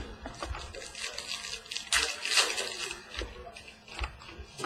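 Trading cards being handled and flipped through by hand: a run of light clicks and flicks, with a longer rustle about two seconds in.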